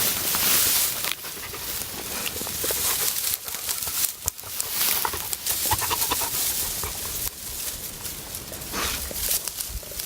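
A dog picks rosehips off a rose bush and chews them: irregular rustling of the bush, with crunching and sharp clicks.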